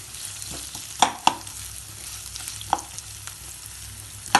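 Onions, chillies and sauces sizzling in a frying pan while a spatula stirs them, knocking sharply against the pan four times.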